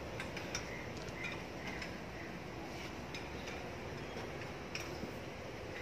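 Faint, scattered metallic clicks and clinks of tools and parts during the engine teardown, over low steady background noise.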